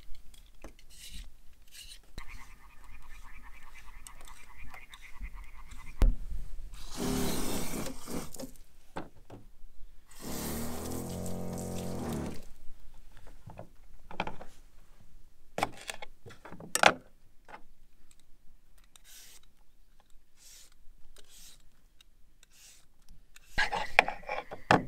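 Potatoes being peeled and handled: scattered small scrapes, clicks and knocks, broken by two longer rushing noises about seven and ten seconds in, the second lasting about two seconds.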